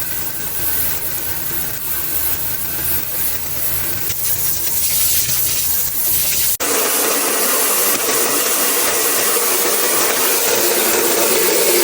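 Continuous scrubbing and rubbing of a cleaning surface. About six and a half seconds in it changes abruptly to a different, steadier rubbing sound.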